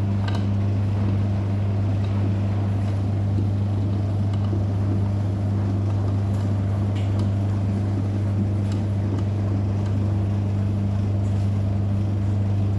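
Washing machine running with a steady low motor hum and a few faint ticks.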